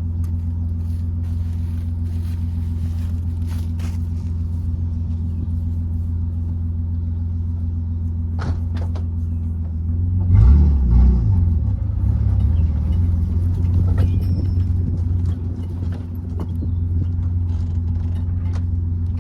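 A vehicle engine running steadily with a low hum, growing louder and rougher about halfway through for a couple of seconds as it pulls away or is revved, with a few sharp knocks scattered through.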